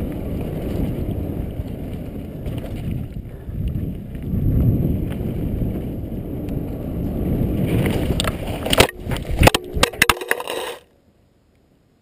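Mountain bike rolling fast down a dry dirt trail, tyre and wind rumble on a helmet-mounted camera. About eight and a half seconds in comes a rapid series of loud crashes and impacts as the front tyre slips out and the rider goes into a tree, then the sound cuts off suddenly.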